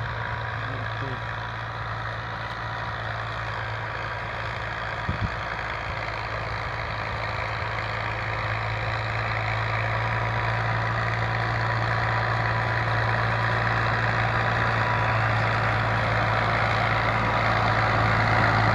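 Fiat 480 tractor's three-cylinder diesel engine running steadily under load, pulling a rotavator through dry soil. It grows louder as the tractor comes closer.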